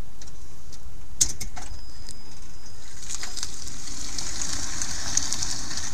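First-generation Toyota Prius (NHW11) pulling away with its petrol engine off, driving on the plug-in battery: mostly tyre noise on paving stones, a hiss that builds from about three seconds in as it moves off, over a steady low rumble. A few sharp clicks come a little over a second in.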